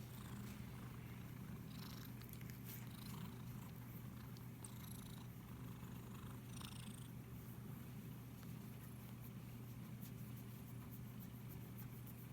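Domestic cat purring steadily while being stroked, with soft rustles of a hand moving over its fur now and then in the first half.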